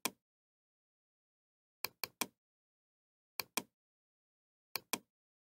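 Computer mouse clicking in quick groups of two or three, about every one and a half seconds, with silence between.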